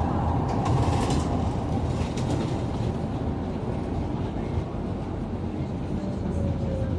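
Inside a Scania GN16 articulated city bus on the move: steady engine and road rumble, with a faint falling whine near the end.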